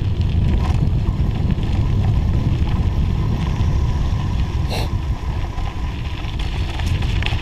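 Wind buffeting the microphone over the noise of bike tyres rolling down a snowy, icy forest road, with a short rattle about two-thirds of the way through.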